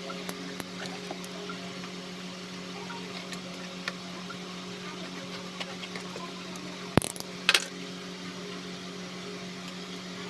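Small ticks and scrapes from a utility knife and a cardboard box being handled and cut, with two sharp clicks about half a second apart some seven seconds in, over a steady low hum.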